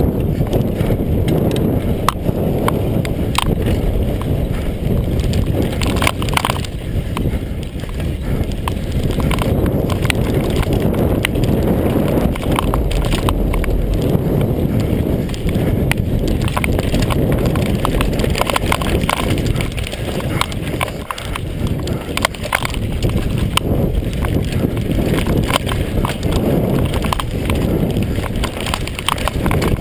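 Mondraker Kaiser downhill mountain bike riding fast down a rough dirt and gravel trail: a steady rumble of knobby tyres on the loose surface, with a constant clatter of sharp knocks from the chain, frame and suspension over the bumps.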